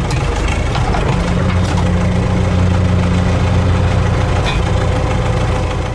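Tractor engine running steadily at low revs, a loud, even, low-pitched engine note.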